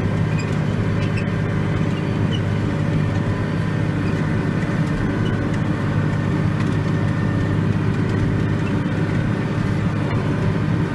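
Tractor engine running steadily, heard from inside the cab, with an even hum that doesn't change.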